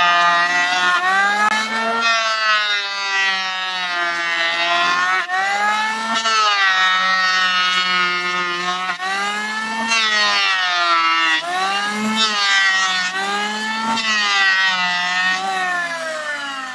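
Corded electric hand planer running and shaving a board, its motor whine dipping in pitch as each pass loads the blade and rising again between passes, about every two seconds. Near the end the planer is switched off and its whine starts winding down.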